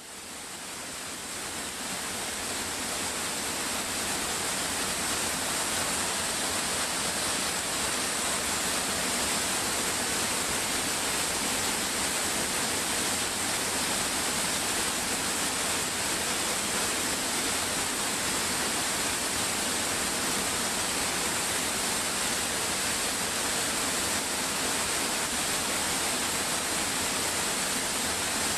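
Waterfall: a steady rush of falling water with no other sounds, fading in over the first few seconds and then holding level.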